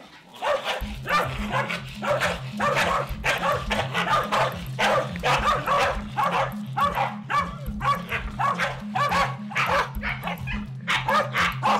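Two corgis barking at each other in quick, unbroken volleys, about three barks a second: the rival dogs squabbling on meeting. A music track with a steady bass line plays underneath from about a second in.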